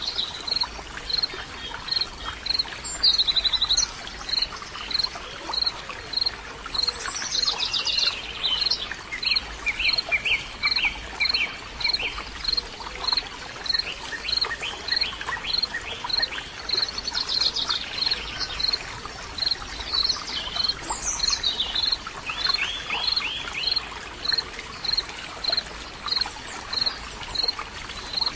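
Birdsong: a steady run of short high chirps, two or three a second, with several other birds' trills and falling song phrases over it, above a steady background rush.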